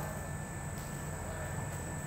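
Vertical form-fill-seal machine for liquid pouches running with a steady low hum and a faint, constant high whine.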